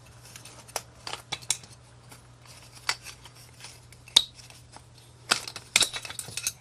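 Small hand tools clicking and scraping against the massager's parts as a solder joint is being disconnected. The clicks are irregular and come thickest and loudest near the end, over a steady low hum.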